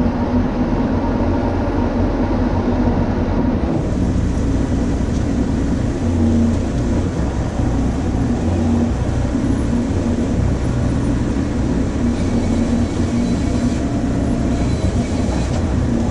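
Heavy diesel engine of the lifting machine running steadily under load while it hoists and lowers a framed truss roof section. It holds a constant low engine note throughout.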